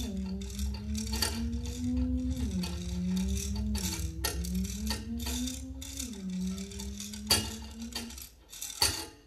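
A foley object being worked by hand as a scooter sound effect: a rattling, clicking noise over a low hum that steps up and down in pitch. It stops about eight seconds in.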